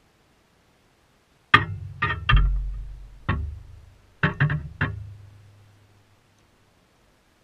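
Short musical phrase of low plucked string notes: about seven notes in quick groups starting about a second and a half in, each ringing on and fading out.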